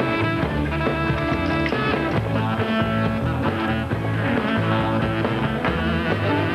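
A live band playing upbeat rock music, with electric guitar over a steady beat.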